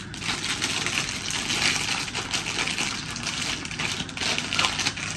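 Continuous close crackling and rustling made of many small crisp clicks, from a fried-chicken and shrimp takeaway meal being handled and eaten in its paper wrappers and foil tray.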